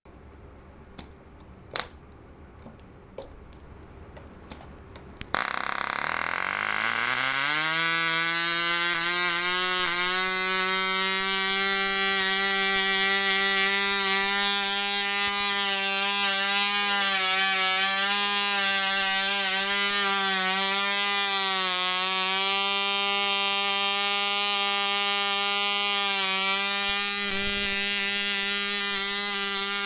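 Cox Medallion .049 two-stroke glow engine on a test stand: a few sharp clicks, then about five seconds in it catches and its pitch climbs for a couple of seconds to a steady, high-pitched buzz that wavers slightly as it runs on with the propeller spinning.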